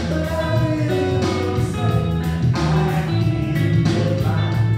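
Background music: a song with a singing voice over a steady bass line and beat.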